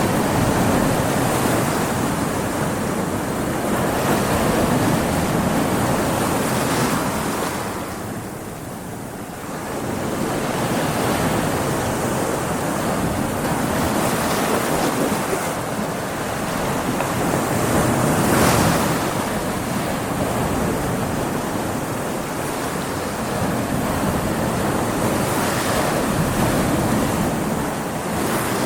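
Ocean waves breaking against rocks, a continuous rushing wash that swells and ebbs, with louder surges every few seconds.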